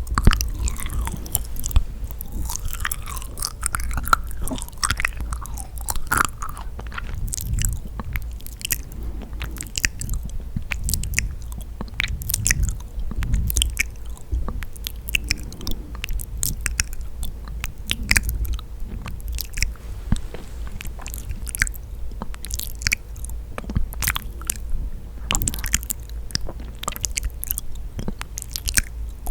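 Close-miked biting and chewing of yakgwa, a sticky, honey-soaked Korean fried pastry, with many small, irregular wet, sticky mouth clicks.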